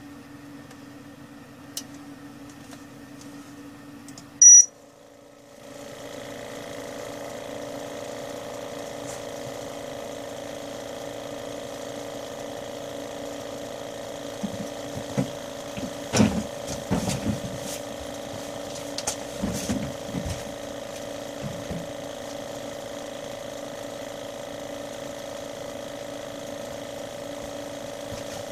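Steady hum of a homemade BGA rework station during reflow heating, cut by a single short, loud electronic beep about four seconds in. After the beep the hum drops out briefly and a different steady hum takes over. Scattered light clicks and knocks come in the middle.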